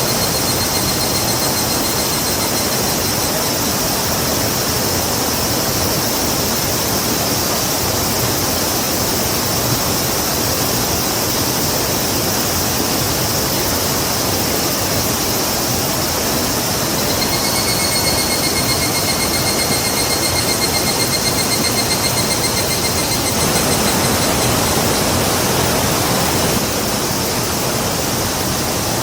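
A river rushing steadily with a dense, even roar of water. A high, rapid trill sounds over it at the start and again for several seconds past the middle.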